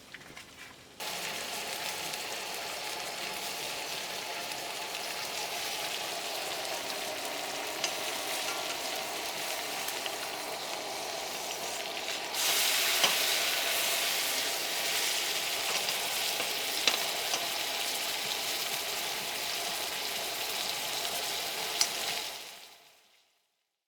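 Steady sizzling hiss, like food frying in a pan, with a few small clicks and pops. It starts suddenly, grows louder about halfway through, and fades out near the end.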